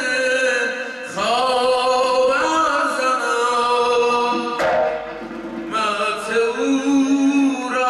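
A male zurkhaneh morshed singing long, held, ornamented notes, with a short breath about a second in and a pause near the middle, over the large skin-headed zurkhaneh drum (zarb), which gives a stroke about halfway through.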